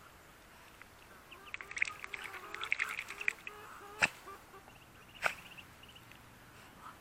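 Calls from a mixed flock of Muscovy ducks, ducklings and hens: a quick burst of short calls between about one and a half and three and a half seconds in, then two sharp clicks about a second apart.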